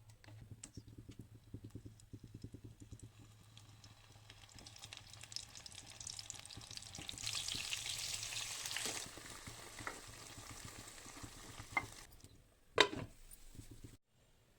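Brinjal frying in a pan while being stirred, with quick scraping strokes at first, then a sizzle that swells for a couple of seconds about halfway and eases off. A single sharp clank comes near the end.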